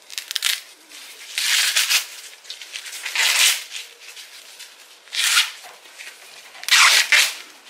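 Green husks being torn down off a fresh ear of sweet corn by hand: about five crisp rustling rips, each lasting under a second, a second or two apart.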